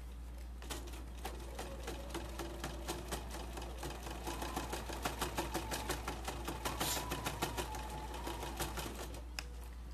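Domestic sewing machine stitching a boxed corner through layered fabric. It starts with slow, separate needle strokes about a second in, runs faster with a steady motor tone through the middle, and stops near the end.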